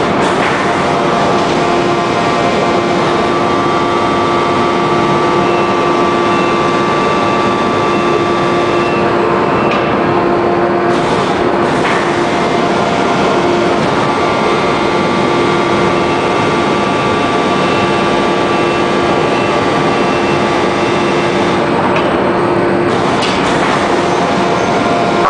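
A 1250-ton hydraulic open-die forging press running: a loud, steady mechanical din with a constant hum.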